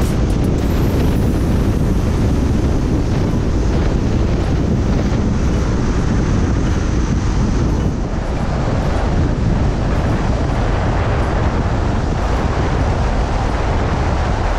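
Wind buffeting the microphone outdoors: a loud, steady rumble heaviest in the low end, with no pauses.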